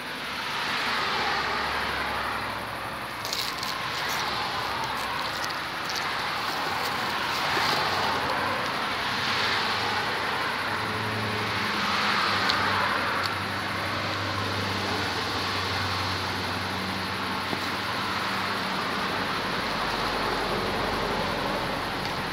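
Road traffic going by, the sound of passing cars swelling and fading every few seconds, with a low engine hum in the middle. Now and then a bag crackles as it is rummaged through.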